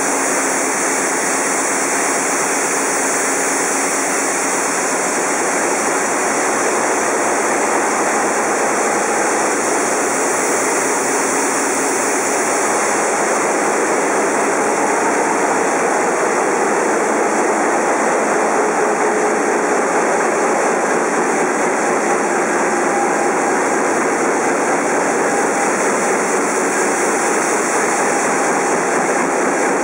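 Large marine diesel engines running in a ship's engine room: a loud, steady, dense machinery noise with no breaks.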